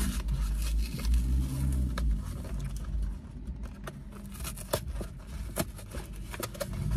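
Handling and eating a snack: scattered crackles and sharp clicks, like a crinkling package and crunching, over a low rumble that is strongest in the first few seconds.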